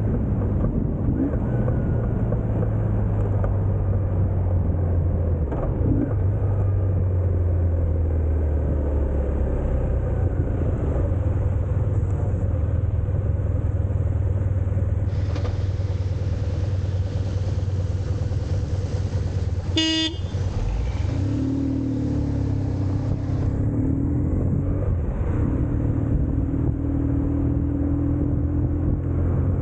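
BMW R1150GS Adventure's boxer-twin engine running steadily at road speed, with wind rushing past. About two thirds of the way through a vehicle horn sounds once, briefly.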